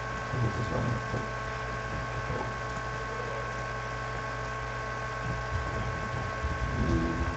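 Steady electrical hum with a thin high whine, the running noise of a computer. Brief low rumbles come about a second in and again near the end.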